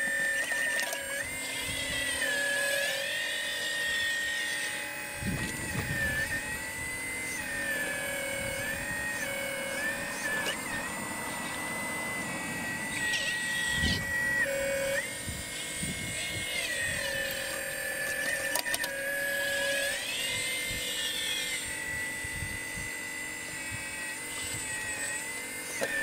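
Electric hydraulic pump whine of a radio-controlled scale CAT 6015B excavator. The high steady whine steps and dips in pitch every few seconds as the boom, arm and bucket move through digging and dumping soil, with a few low thumps.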